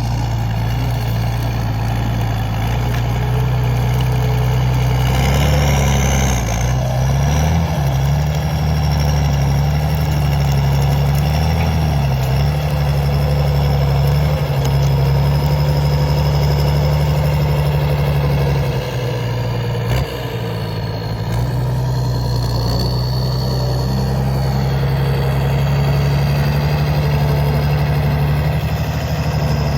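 A CBT 1105 tractor's Mercedes-Benz OM 366 six-cylinder diesel engine rumbling steadily at work. Its speed swings up and down a few times in the first third and dips briefly about two-thirds of the way through, with a thin high whine over the low drone.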